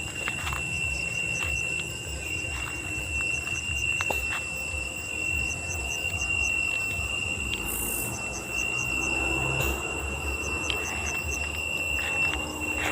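Night chorus of insects, crickets among them: a steady shrill tone with short trains of chirps repeating over it every second or two.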